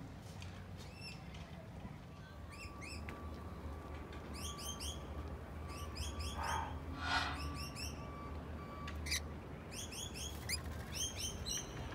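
Rainbow lorikeet chattering: several bursts of quick, high chirps, a few seconds apart, over a low steady hum.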